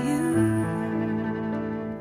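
A slow love ballad plays in an instrumental gap between sung lines, with held notes that change chord about half a second in.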